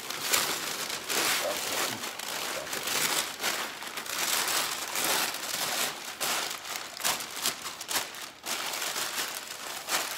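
A thin plastic sheet being spread out and smoothed by hand, crinkling in a continuous run of irregular crackles.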